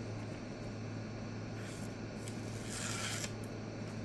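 Two soft rubbing or scraping sounds, a faint one about two seconds in and a fuller one around three seconds, over a steady low hum.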